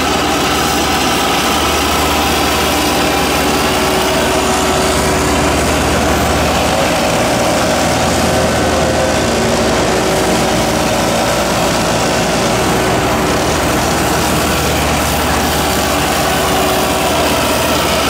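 Vermeer SC 1152 stump grinder's engine running steadily at a constant speed.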